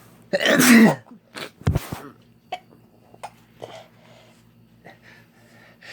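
A person sneezing hard once, about half a second in: a loud voiced blast that falls in pitch. A shorter, noisy blast follows a second later, then a few small breaths and sniffs.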